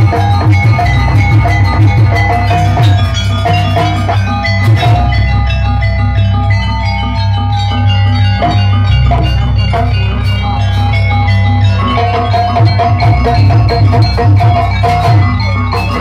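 Gamelan-style jaranan accompaniment: drums and ringing metallophones beat out a steady rhythm under a melody of held notes, over a constant deep low drone.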